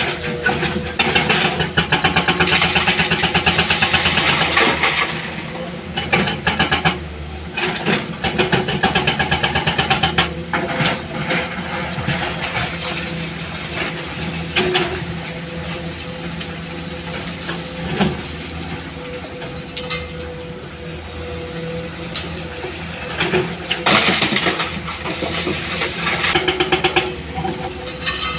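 Diesel engines of an excavator and a dump truck running, with several louder spells of rapid engine clatter and a few sharp knocks.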